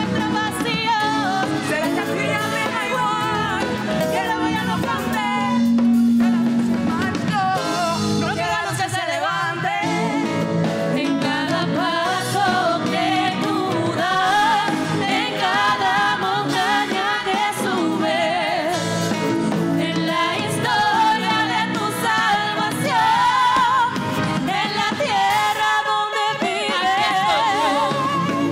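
A live band and several singers performing a song in a fusion of pambiche, rock and tropical styles, with singing over keyboard, bass, drums and hand drums.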